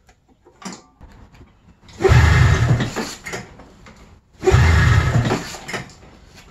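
A 1995 Arctic Cat ZR 700 two-stroke snowmobile engine being pulled over twice on its starter, each about a second of cranking that fades without the engine catching: it isn't firing because there is no spark.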